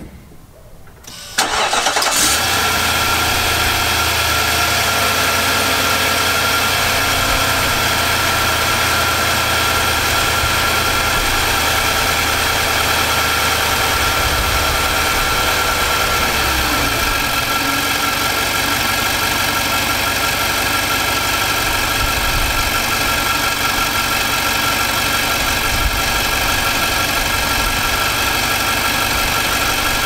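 2018 Nissan Armada's 5.6-litre V8, fitted with a new replacement short block, cranking and starting about a second and a half in, then idling steadily. About halfway through, the idle speed drops and settles lower.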